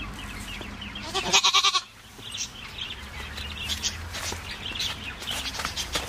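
A goat bleats once about a second in, a single wavering cry lasting just under a second.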